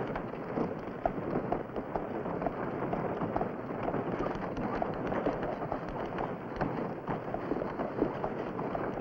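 Horse-drawn covered wagon on the move: a steady, dense clatter of rattling wheels and gear mixed with hooves.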